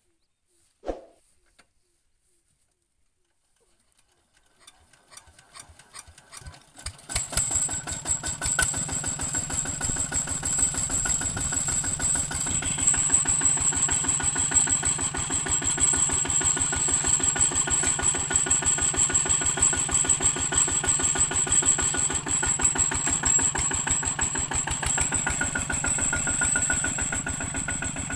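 ZT155 two-wheel walking tractor's single-cylinder diesel engine being started: a single knock about a second in, then slow chuffs that quicken over a few seconds until the engine catches about seven seconds in. It then runs steadily with a rapid chugging as the tractor moves off.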